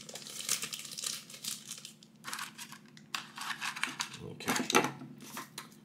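Packaging being handled: rustling and crinkling in a few stretches with short pauses between them.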